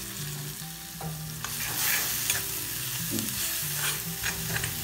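Ground shallot, garlic and chili paste sizzling in hot coconut oil in a kadai, stirred and sautéed with a steel spoon that scrapes and knocks against the pan. The sizzle grows louder about two seconds in, as the paste is worked through the oil.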